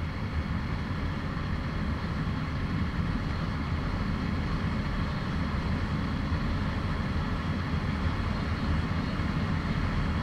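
Motorcycle running steadily at road speed, heard from the rider's seat: an even engine drone that does not rise or fall.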